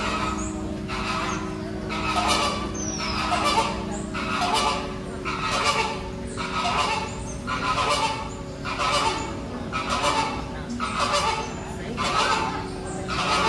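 Bird calls like goose honks, repeated at about one a second, over a steady low hum.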